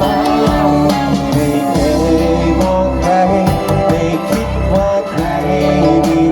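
Music: a Thai pop song played by a band with guitar and drums, with a man singing the melody over it.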